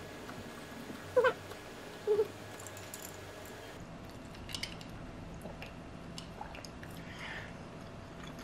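Two short, high, rising vocal sounds about a second apart, the loudest thing here, followed by faint clinks of ice in a glass of iced latte as it is lifted and sipped through a straw.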